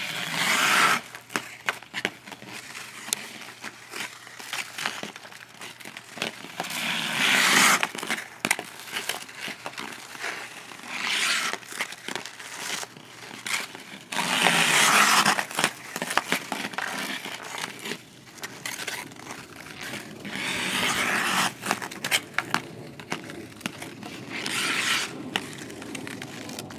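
Ice skate blades scraping and carving over a rough, uneven glaze of freezing-rain ice, in about six long scrapes a few seconds apart with small clicks and knocks in between.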